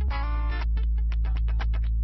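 Background music: a held bass note under a quick run of short plucked notes.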